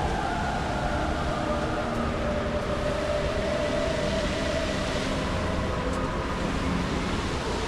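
The Dubai Fountain's water jets spraying with a steady rush, with faint voices over it.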